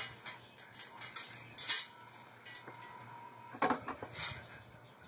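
A few sharp metal clinks and rattles of hand tools and bicycle parts being handled during a bicycle teardown, the loudest about a second and a half in and twice more between three and a half and four and a half seconds in.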